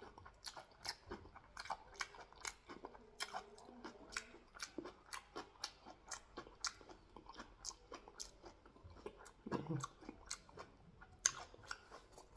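A person chewing and biting food close to the microphone: a steady run of small wet mouth clicks and crunches, several a second.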